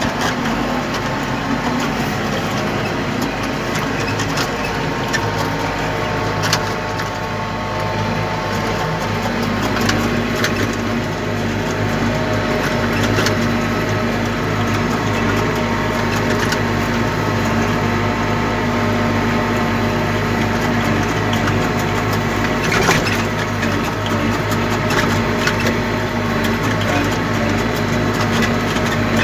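Case tractor engine running steadily under load while pulling a 44-disc harrow through tilled ground, with a few sharp clanks now and then.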